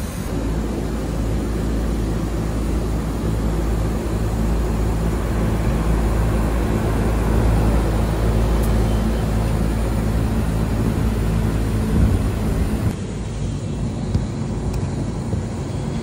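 Mitsubishi Electric VRF outdoor unit running on its test run after its faulty TH2 thermistor was replaced: a steady low machine hum with several pitched tones that slowly grows louder. About thirteen seconds in it gives way to a quieter, different background.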